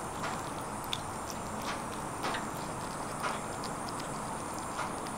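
Kittens chewing and tearing at a piece of oven-grilled chicken: irregular soft clicks and smacks about once or twice a second, over a steady background hiss.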